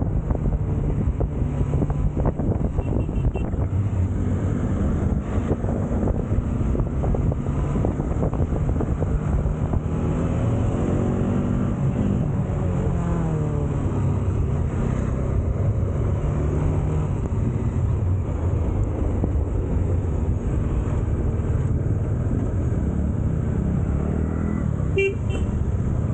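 Bajaj Dominar 400 motorcycle engine running under way, with wind rush, its pitch rising and falling a few times around the middle as the speed changes. Short horn beeps about three seconds in and again near the end.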